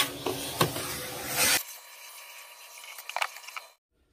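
Shop vacuum running and sucking up sawdust and wood chips from a freshly drilled hole, with sharp clicks as chips rattle up the hose. About one and a half seconds in the sound abruptly thins, and it cuts off near the end.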